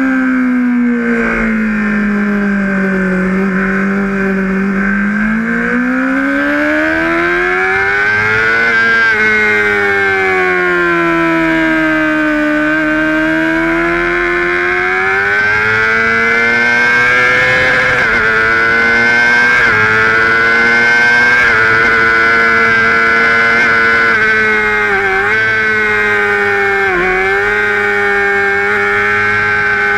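Honda sportbike engine heard from onboard at track pace: the revs fall, climb, fall and climb again in long sweeps through the corners, then hold high with two quick dips near the end as gears are changed.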